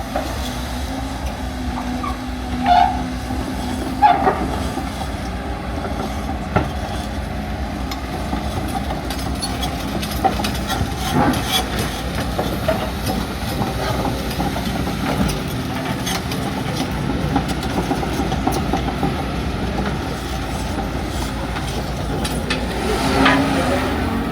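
LiuGong 942F crawler excavator working: its diesel engine runs steadily under a hydraulic whine, with a few sharp metallic clanks and, near the end, a squealing sound that glides in pitch.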